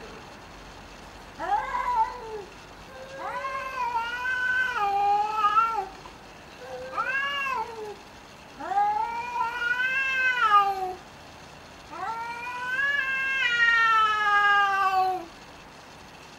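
Domestic cats yowling in a fight: five long, drawn-out yowls, each rising and then falling in pitch, with short gaps between them. The last yowl is the longest and slides downward at its end.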